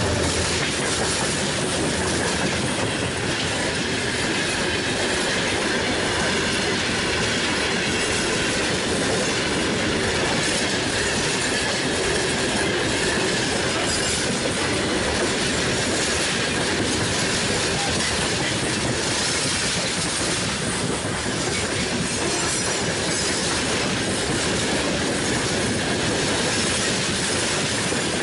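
Open freight wagons of a broad-gauge train rolling past close by: a steady loud rattle of wheels on rail with a thin high wheel squeal running through it. The diesel locomotives' engine hum drops away right at the start.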